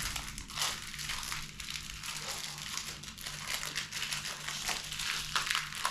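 Paper and plastic packaging crinkling and rustling as it is handled, in a run of short, irregular crackles.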